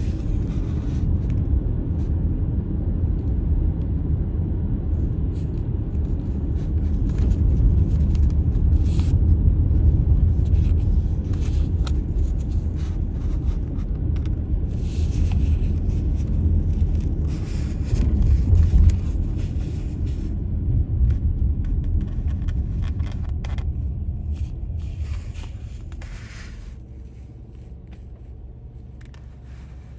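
Car driving: a steady low rumble of road and engine noise, which fades over the last few seconds as the car slows to a stop.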